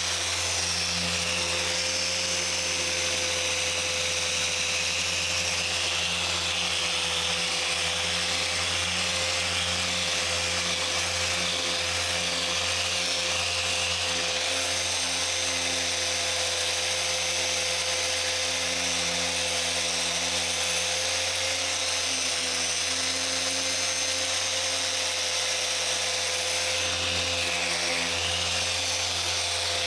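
Electric car paint polisher running steadily with a constant whine, its pad working over the paintwork.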